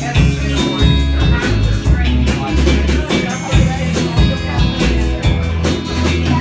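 Live acoustic band playing an instrumental stretch of a rock song: strummed acoustic guitars over a drum kit keeping a steady beat, with low bass notes underneath.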